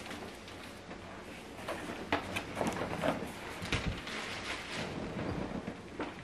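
Cardboard product box being handled and turned over: a steady rustle with a few light knocks and scrapes of cardboard from about two seconds in.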